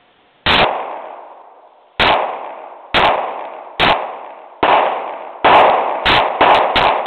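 Taurus PT917C 9mm pistol firing: six single shots a little under a second apart, then quickening to shots about a third of a second apart near the end, each with a short echoing tail.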